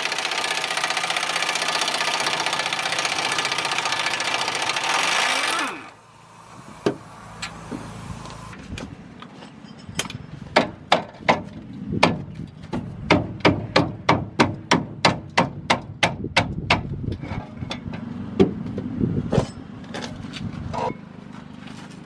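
Impact wrench hammering on a very tight brake caliper mounting bolt for about six seconds, then stopping abruptly. After a pause comes a run of sharp metallic clicks, about three a second, from hand work on the brake.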